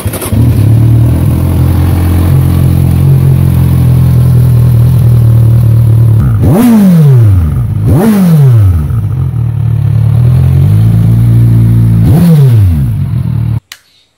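Kawasaki Z1000 SX's inline-four engine idling through a GPR aftermarket exhaust. Three quick throttle blips come about six and a half, eight and twelve seconds in, each revving sharply up and dropping back to idle. The sound cuts off suddenly near the end.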